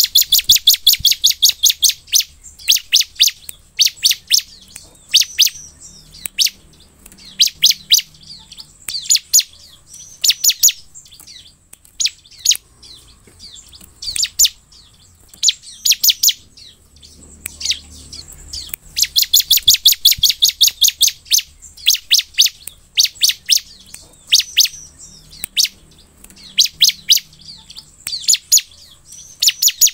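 Bar-winged prinia (ciblek) singing: fast, rattling trills of sharp high notes in short bursts about every second, with a longer run at the start and again about 19 seconds in.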